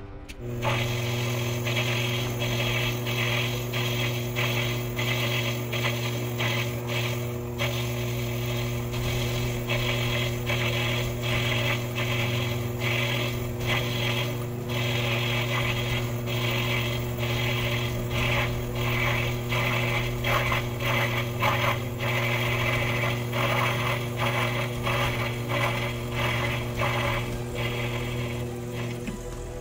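Sherline mini lathe running with a steady motor hum while a cutoff tool is fed in by hand to part off a washer, making a quick, irregular scraping and clicking chatter over the hum. The lathe starts about half a second in and stops just before the end.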